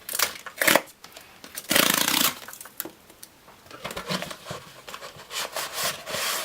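Hands opening and handling a hardcover book's packaging: short rustles and scrapes, with one longer, louder rasp about two seconds in.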